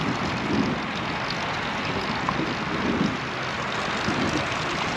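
Steady rush of wind and road noise from riding a road bicycle, without pauses or distinct events.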